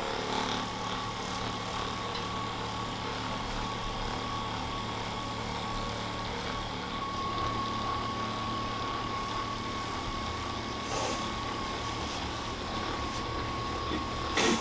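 Electric percussion massager running steadily with a constant motor whine, pressed into the glute and hip muscles to loosen them.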